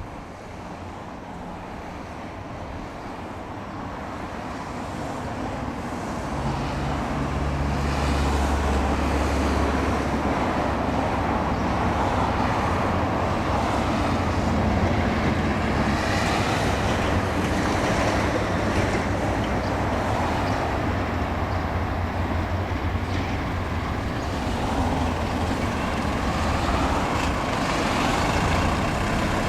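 A vehicle running close by: a low steady engine hum and rumble that builds over the first several seconds, then holds steady.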